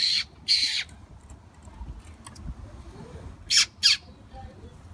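A person making short, hissy chirping sounds with the mouth to call a grey squirrel. There are two quick pairs of chirps, one right at the start and one about three and a half seconds in.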